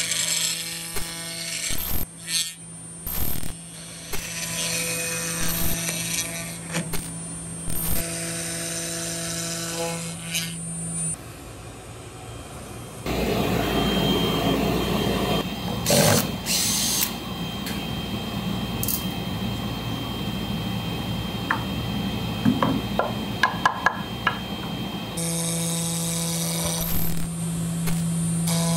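CNC router spindle milling cherry wood with a small end mill: a steady motor whine under the chatter of the cutter. About halfway through, the whine drops away and a noisier hiss with a faint high whistle and a few sharp ticks takes over. The spindle whine returns near the end.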